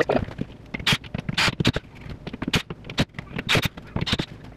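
Cordless drill/driver driving 1¼-inch drywall screws into wooden furring strips overhead: a run of sharp, irregular clicks and knocks with a few short bursts of driving.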